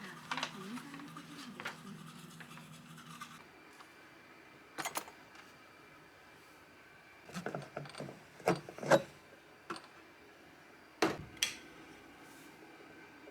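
Short knocks and scrapes of hard household objects being handled, in a few separate clusters. A low steady hum cuts out about three and a half seconds in.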